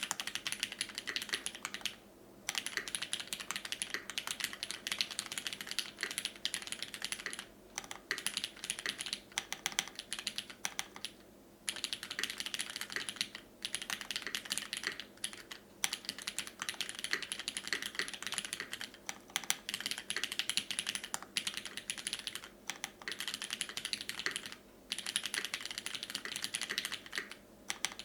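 Typing on a custom mechanical keyboard with lubed, filmed retooled Cherry MX Black linear switches on a brass top-mount plate, with GMK keycaps: fast, continuous keystrokes broken by brief pauses every few seconds.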